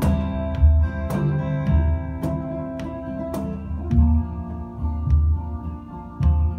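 Live acoustic instrumental passage: acoustic guitars and mandolin picking a melody over a steady low beat from a cajon, with no singing.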